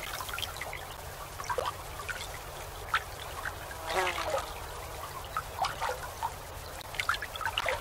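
Gently lapping, trickling water with scattered small splashes, and one brief call about four seconds in. A low steady hum runs underneath.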